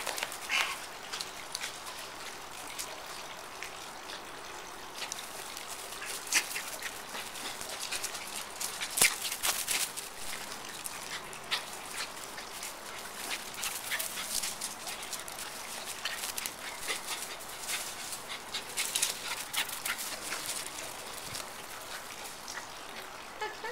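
Small dog playing wildly on a grass lawn, making short dog sounds, with scattered brief rustles and scuffs throughout.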